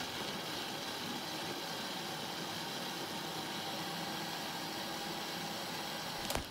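Countertop blender motor running steadily at full speed, puréeing tomatoes and a hot red pepper into a sauce. It cuts off abruptly near the end.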